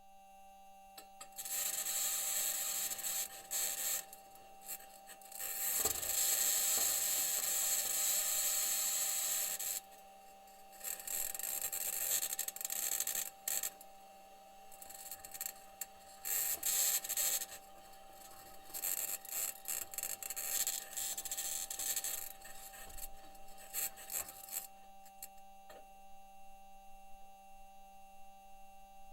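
Perseverance rover driving on Mars: its aluminium wheels grind and scrape over rock in rough, uneven bursts of a few seconds, with a steady faint hum beneath, and the scraping thins out near the end.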